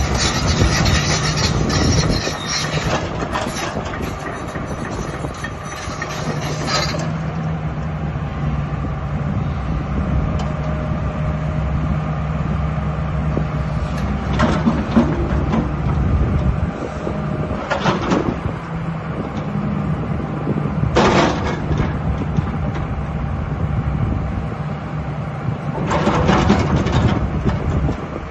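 JCB 225LCM tracked excavator's diesel engine running with a steady low hum. There are brief louder rushing bursts four times, and the first several seconds are busier.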